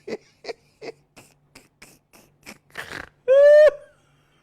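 Laughing sound effect: short rhythmic laugh bursts about three a second that fade into breathy wheezes, then a loud high squeak lasting about half a second near the end.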